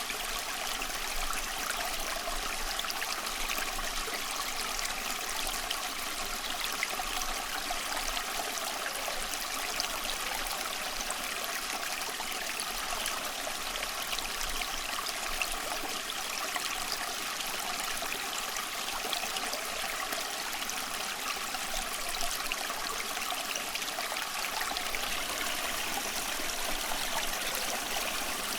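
Running water flowing steadily, a constant stream-like rush and trickle with no breaks.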